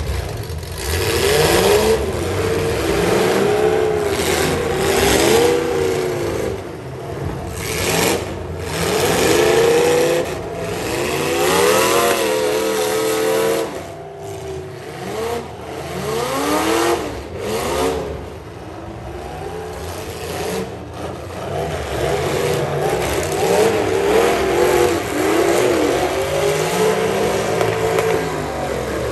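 Demolition-derby pickup trucks' engines revving hard, their pitch climbing and falling over and over as they accelerate and back off, with a few sharp bangs of collisions. The revving eases for a while in the middle and builds again near the end.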